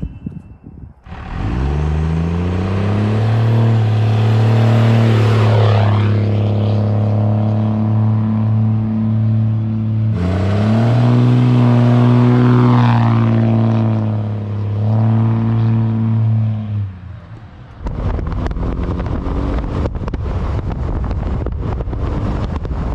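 A 1996 Dodge Ram 2500's 12-valve Cummins inline-six turbodiesel, fitted with an adjustable fuel plate, pulling hard under full throttle, twice: the engine note climbs and then holds, with a higher whine sweeping up and down over it. From about 18 s, steady wind rushing over the microphone while the truck drives.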